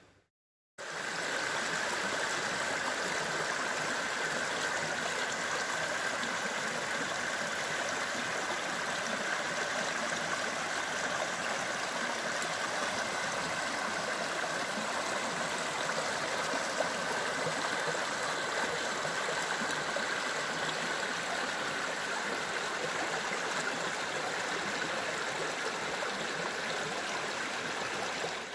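River water rushing over a shallow gravel bar, a steady, unbroken noise that starts about a second in.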